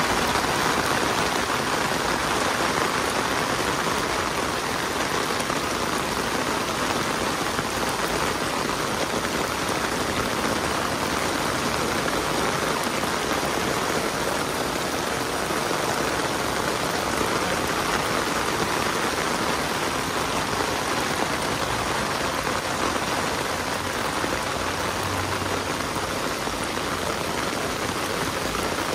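Heavy rain falling onto a flooded street and pavement, a steady, even hiss that doesn't let up.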